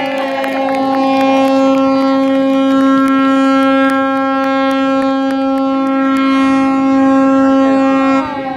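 A ship's horn sounding one long, steady blast that cuts off abruptly near the end.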